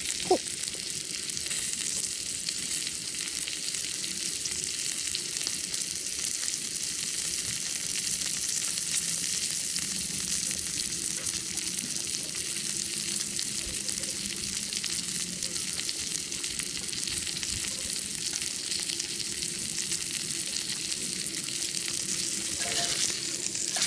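Wagyu steak sizzling steadily in a hot cast iron skillet on a camp stove, the fat spitting in an even high hiss.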